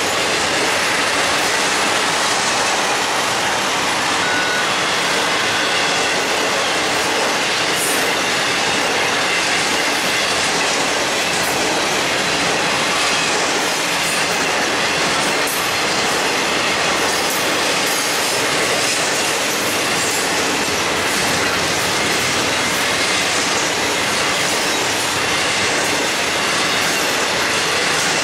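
Intermodal freight train cars rolling past close by, trailers on flatcars and double-stacked containers: steady rolling noise of steel wheels on rail, with scattered light clicks.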